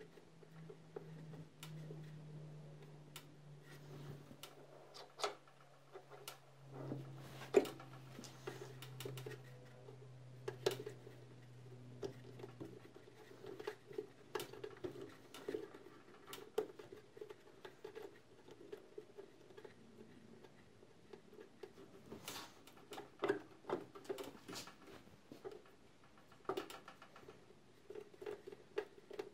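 Faint irregular clicks and small knocks of hands handling a spool gun's brass connector and turning its thumbscrew in a MIG welder's wire-feed drive. A faint low hum slowly drops in pitch and fades out about halfway through.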